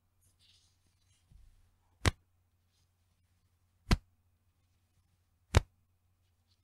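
Bra's elastic band snapped three times, each a sharp, short slap ("pechin") about two seconds apart, after faint rustling of the fabric.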